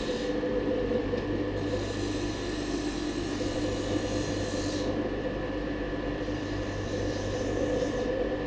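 Metal lathe running steadily: an even hum with a few steady tones over a hiss.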